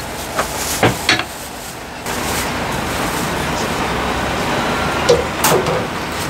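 A cleaver knocking on a wooden chopping block a few times in the first second or so, then a steady rushing background noise with one sharp click near the end.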